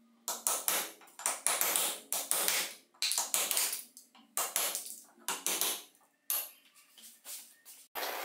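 Hand-tool work on an old drill's armature as it is being taken apart: about twenty quick, sharp scraping or striking strokes, two or three a second, in uneven groups.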